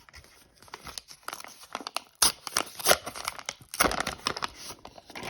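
A trading card pack's wrapper being torn open and crinkled by hand, in a run of irregular crackles, with the loudest rips about two, three and four seconds in.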